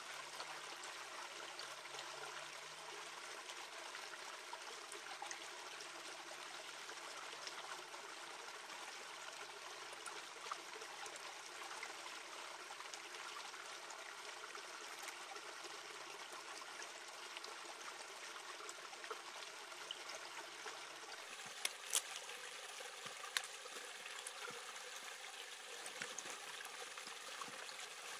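Shallow stream trickling over rocks, a steady flow. In the last third come a few sharp clicks and crackles as the large leaves of a wrap are folded and pressed.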